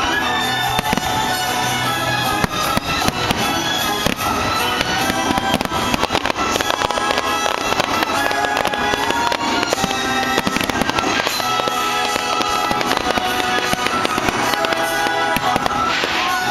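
Aerial fireworks bursting in quick succession, with many sharp bangs and crackles, over music.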